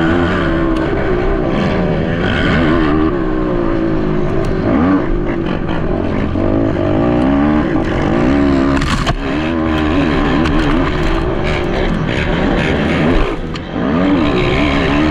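Racing ATV (quad) engines revving hard, their pitch rising and falling with throttle and gear changes. Several engine notes overlap, and the sound dips briefly near the end.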